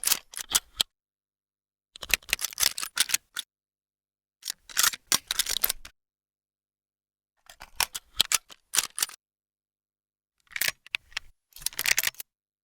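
Gun foley: a firearm's mechanism being handled, in five short bursts of sharp metallic clicks and clacks a couple of seconds apart, with dead silence between them.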